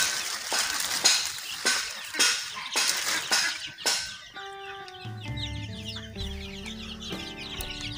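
Plastic sheeting crinkling and rustling as it is pulled off a chick brooder for about four seconds. Then a crowd of 24-day-old desi chicks peeps busily; they have got a little cold. Background music with steady notes comes in about halfway.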